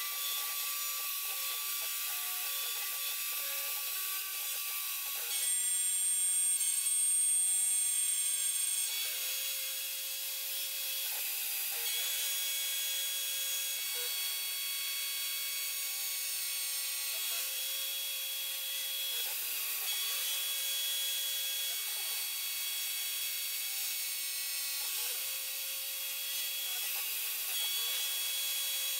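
A DeWalt 611 router, used as a CNC spindle, milling aluminium plate with an end mill: a steady high whine and cutting hiss. Under it a lower tone shifts pitch every couple of seconds, and the sound grows louder for a few seconds about five seconds in.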